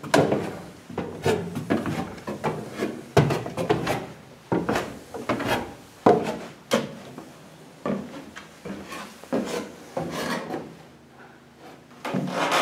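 Footsteps going down wooden stairs and onto wooden floorboards: an irregular string of knocks on the boards, about one or two a second.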